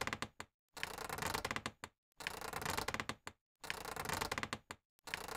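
Looped mechanical clicking and rattling sound effect: bursts of rapid clicks about a second long, repeating roughly every one and a half seconds with short silent gaps between.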